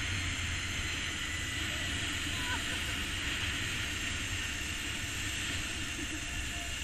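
Zipline trolley pulleys rolling fast along the steel cable: a steady whirring rush with a strong low rumble of wind on the microphone, easing slightly toward the end.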